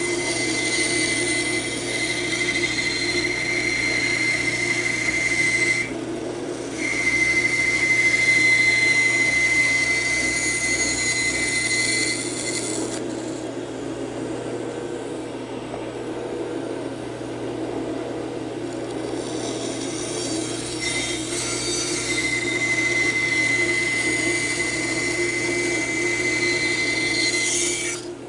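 Band saw with a narrow 3/16-inch blade running and cutting through a block of spalted wood, over a steady motor hum. A high whine from the cut comes and goes: it breaks off briefly about six seconds in and drops away for several seconds in the middle, when the sound is quieter, then returns.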